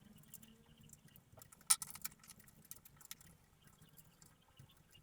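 Small scattered clicks and plastic taps of a SATA data cable being plugged in and routed inside a PC case, with one sharper click a little under two seconds in.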